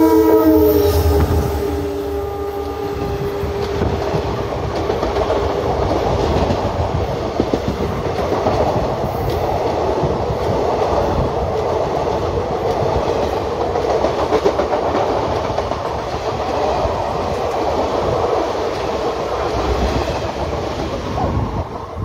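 WDP4D diesel locomotive sounding its horn as it runs through, the chord dropping in pitch about a second in and fading over the next few seconds. It is followed by the steady rumble and clickety-clack of a rake of ICF coaches passing at speed, which cuts off abruptly at the end.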